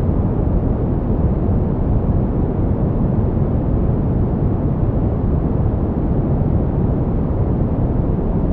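Green noise: a steady, even hiss weighted toward the low and middle pitches, dull and rumbling with little treble.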